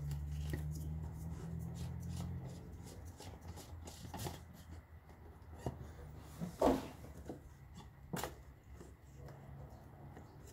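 Oil filter housing cap on a Land Rover Discovery 3 diesel being handled, unscrewed and lifted out: scattered light clicks and knocks, the loudest about two-thirds of the way through, with a low steady hum in the first few seconds.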